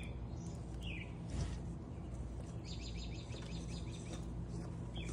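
Birds chirping: a short falling chirp about a second in, then a rapid trill of repeated high notes lasting a couple of seconds, over a steady low hum. One faint knock about a second and a half in.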